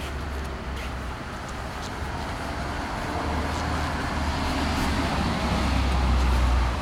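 Low rumble of vehicle traffic, growing louder over the second half and dropping away abruptly at the end.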